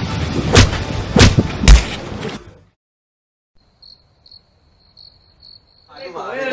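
Fight-scene punch sound effects: three loud hits in the first two seconds, after which the sound cuts off abruptly. Following a brief silence, faint crickets chirp in short pulses.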